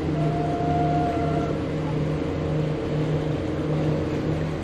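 The motor yacht's inboard engines running underway, heard from the helm as a steady drone with an even, slow throb about one and a half times a second.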